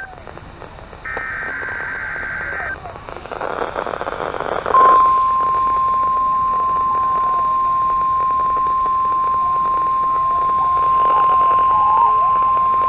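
NOAA Weather Radio test received over the air: a short burst of the SAME/EAS digital header data, then the steady 1050 Hz weather radio warning alarm tone sounding from about five seconds in, over constant radio hiss.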